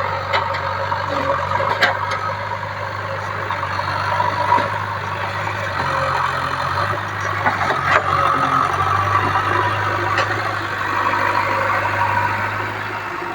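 Backhoe loader's diesel engine running steadily, its pitch shifting slightly now and then, with a few short knocks.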